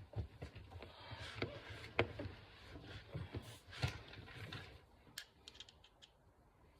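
Hands fitting a trunk release actuator motor back into its mount: scattered clicks, light knocks and rustling of the parts, the sharpest knocks about two seconds in and near four seconds, then a few quick ticks before it goes quiet.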